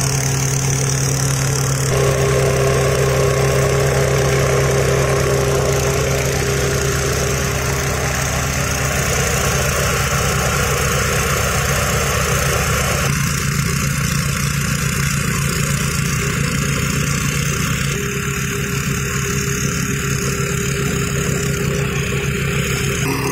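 Small single-cylinder petrol engine of a portable rail drilling machine running steadily as it drives the drill bit into the rail. Its tone changes abruptly a few times.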